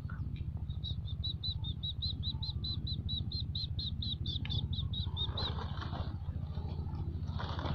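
A small bird calling a fast, even series of short high chirps, about six a second, for several seconds, over a steady low rumble. A louder rustling noise starts near the end.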